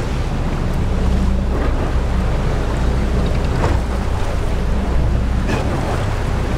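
Boat engine running steadily at idle, a low hum, with wind on the microphone and water noise over it.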